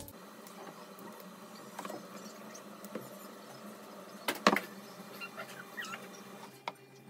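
Pancake batter sizzling in a nonstick frying pan, with small clicks and a pair of louder knocks about four and a half seconds in as the pan is set back down on the hob.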